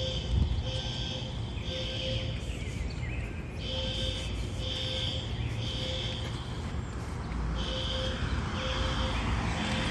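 Fire alarm sounding in the temporal-three evacuation pattern: groups of three high half-second beeps with a pause of about a second and a half between groups. A steady low rumble of background noise runs underneath.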